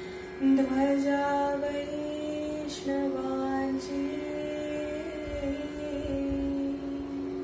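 A woman singing a Marathi devotional song unaccompanied by any beat, slowly, in long held notes with small turns in pitch. A steady drone note sounds under the voice.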